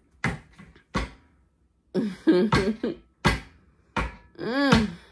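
A series of sharp taps or thumps at irregular intervals, mixed with short wordless vocal sounds from a young child, one rising and falling in pitch near the end.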